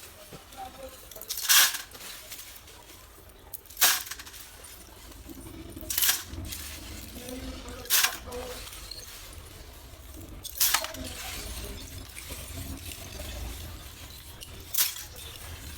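Pieces of roasted multani mitti (Fuller's earth clay) cracking with sharp, crisp snaps, six times, each a couple of seconds apart.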